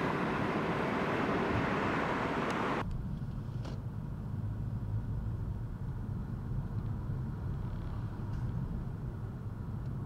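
Road traffic noise with tyre and wind hiss that cuts off abruptly about three seconds in, leaving a quieter low steady vehicle rumble with a faint click or two.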